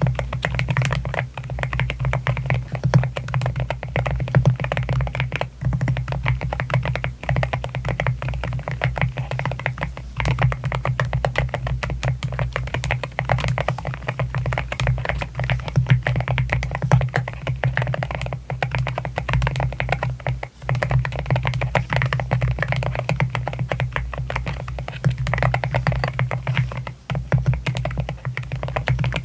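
Continuous fast typing on an AKKO MU01 wooden-case mechanical keyboard with Akko Rosewood linear switches: a dense, steady run of keystroke clacks.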